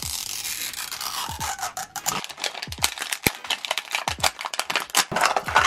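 Plastic film wrapper being peeled and torn off a Mini Brands capsule ball: a continuous ripping peel for about the first two seconds, then rapid crinkling and crackling of the loose plastic as it is pulled away.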